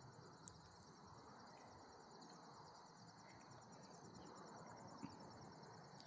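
Faint, steady chirping of crickets in a quiet rural field, with a small click about half a second in.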